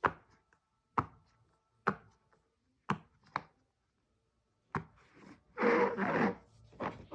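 Silicone pop-it fidget toy bubbles being pressed one at a time, a sharp pop about once a second, then a longer rubbing sound over the toy a little past halfway.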